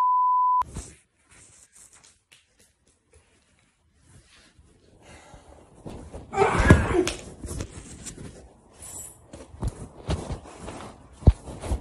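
A steady censor bleep tone that cuts off about half a second in, then a hushed phone recording of a room: scattered knocks, thuds and handling noise, the loudest a heavy thump about seven seconds in.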